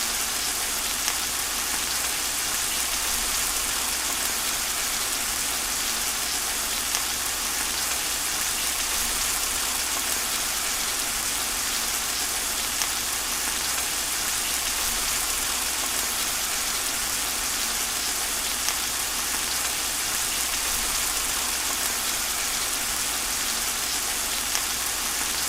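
Steady rain falling, a dense even hiss with an occasional slightly louder drop.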